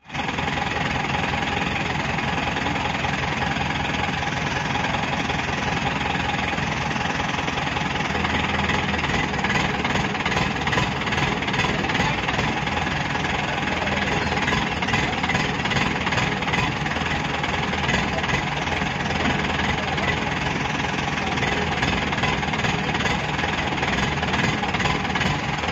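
Diesel engine of a crane truck running steadily.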